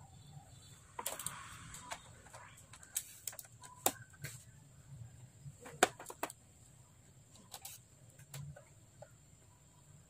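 Irregular sharp clicks and taps of a plastic laptop bottom cover being pressed and snapped back into place, with a metal screwdriver knocking against the case; a short scraping rustle about a second in.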